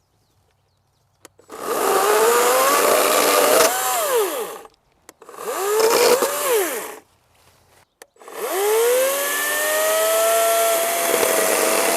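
EGO 14-inch 56V battery-powered electric chainsaw started three times with a click of the trigger. The motor and chain spin up with a rising whine, and twice wind down with a falling whine. The third time it runs on at a steady pitch.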